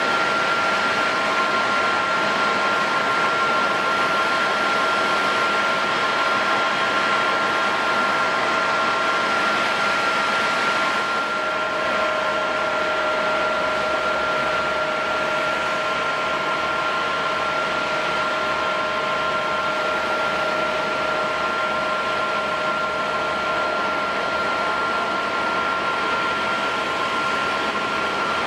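Airliner jet turbines whining steadily at low power, a rushing hiss with a high steady whine on top; the lower tones shift slightly about eleven seconds in.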